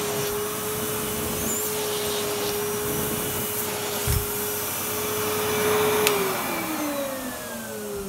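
1998 Numatic Henry vacuum cleaner running steadily with a humming whine, its well-used motor a wee bit grumbly. About six seconds in it is switched off with a click, and the motor winds down, the whine falling in pitch.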